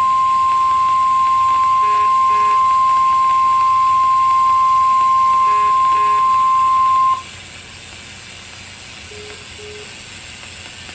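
NOAA Weather Radio warning alarm tone, a steady 1050 Hz beep sounding the alert for a severe thunderstorm warning, which cuts off suddenly about seven seconds in. The radio receiver's static hiss runs underneath and carries on after the tone stops.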